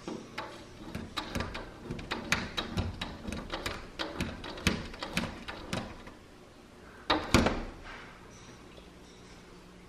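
An Alaskan malamute licking and nosing the glass pane of a door: a quick run of taps and knocks against the glass, several a second, then one louder bump on the door about seven seconds in, after which it goes quieter.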